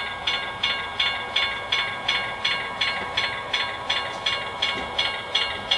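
Steam locomotive chuffing in an even rhythm of hissing puffs, about two and a half a second, over a faint steady tone.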